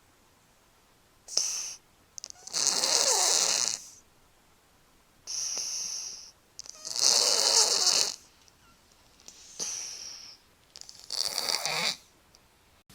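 A sleeping cat snoring: three breaths about four seconds apart, each a short, higher whistle followed by a longer, louder rasp.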